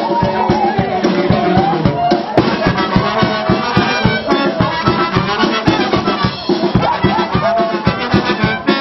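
Live brass band music for carnival dancing: a lively tune over a quick, steady drum beat.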